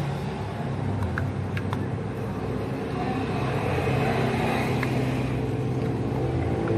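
A steady engine rumble, with a few light clicks over it.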